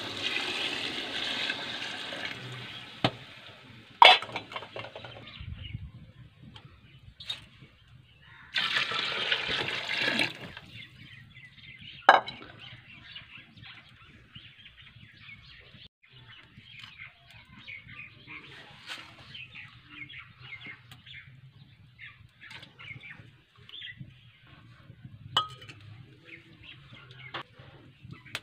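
Water poured from a metal bowl into an aluminium cooking pot of fried vegetables, splashing in two pours a few seconds long, with sharp clinks of metal on metal after each. After that, a faint steady crackling as the pot heats over a wood fire.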